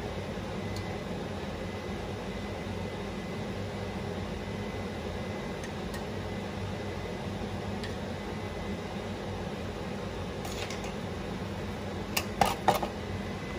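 Kitchen fan running with a steady whir and low hum. About ten seconds in and again near the end come a few sharp clinks.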